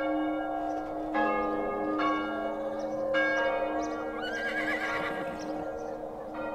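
Bell-like tones struck about once a second and left ringing over a long held low note. About four seconds in there is a short wavering high cry.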